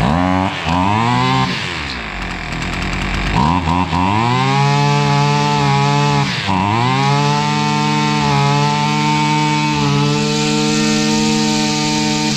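Husqvarna 553 RBX brush cutter's two-stroke engine running with its air filter removed. It is revved up and down several times, then held at steady high revs.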